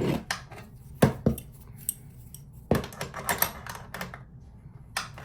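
Metal wrench clinking and knocking against a threaded hose fitting as the connection is tightened, in short clusters of sharp clicks.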